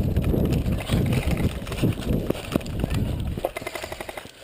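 An airsoft player running, with heavy, uneven footfall thuds and gear knocking against the microphone. Near the end comes a quick string of rapid clicks.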